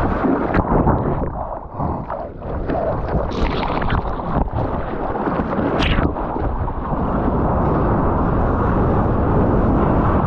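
Sea water rushing and splashing around a surfboard moving through broken waves, heard close up through an action camera, with wind and water buffeting the microphone. A few sharper splashes stand out.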